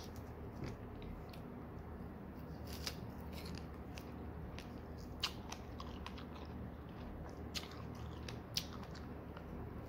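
A person biting into and chewing fresh, juicy strawberries close to the microphone, with a few sharp, wet clicks.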